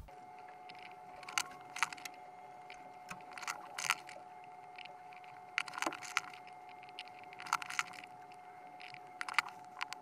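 Hard plastic Lego Technic parts clicking and clacking in scattered groups of sharp clicks as clutch gears are pulled off and pushed onto an axle in the test rig, over a faint steady whine.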